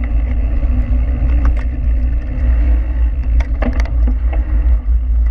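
Steady low rumble of a mountain bike rolling fast over a gravel road, heard through a handlebar-mounted action camera with wind on its microphone. A few sharp clicks of stones and bike rattle come about a second and a half in and again between three and four seconds in.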